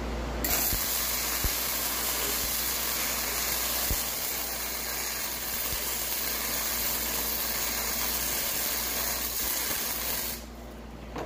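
Flux-core wire-feed welding arc, running on self-shielded Innershield wire with no shielding gas, crackling and hissing steadily for about ten seconds. It starts about half a second in and stops shortly before the end.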